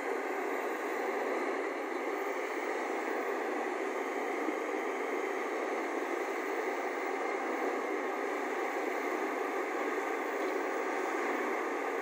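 Excavator diesel engines running steadily, heard as an even, hissy drone with no distinct knocks.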